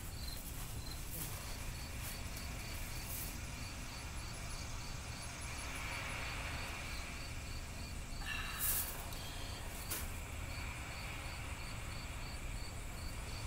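An insect chirping steadily outdoors, a regular high-pitched pulse about two or three times a second, over a low steady background rumble, with a few faint clicks.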